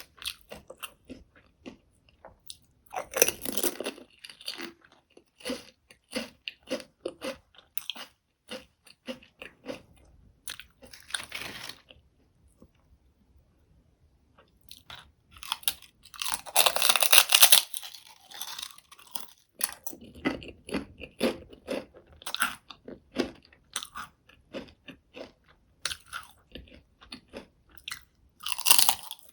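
Close-miked eating of crisp potato chips: bites that crack with sharp crunches, then chewing with scattered crackles. There is a pause of a few seconds near the middle, and the loudest crunching comes just after it.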